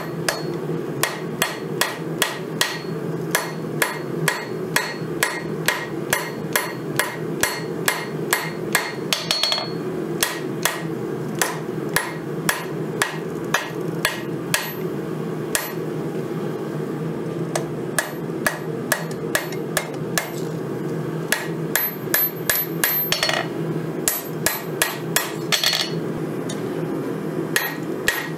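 Hand hammer striking a red-hot 5160 steel blade on an anvil: steady, even blows about two to three a second, each with a short metallic ring, broken by a couple of brief pauses. A steady low hum runs underneath.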